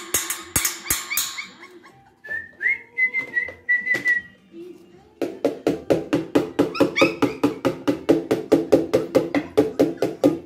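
Background music. A drum beat drops out about a second in, a short whistled melody follows, and about halfway through a steady beat with chords comes back in.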